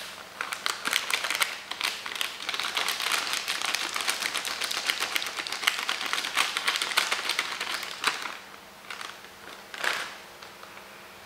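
Timemore hand coffee grinder crunching coffee beans: a dense run of fine, rapid crackling clicks for about eight seconds, then a few scattered clicks and a single louder one near the end.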